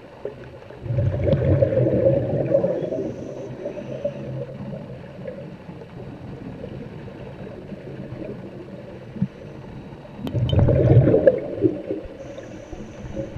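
Water gurgling and bubbling, with two louder surges: one about a second in lasting a couple of seconds, and another near the end.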